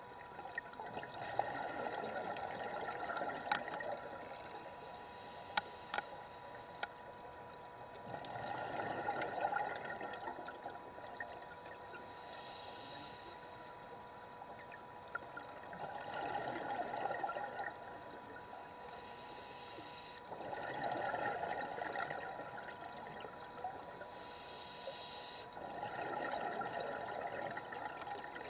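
Scuba diver breathing through a regulator underwater. Each breath is a short hiss on the inhale, then a gurgling rush of exhaled bubbles, five breaths in all, over a faint steady tone.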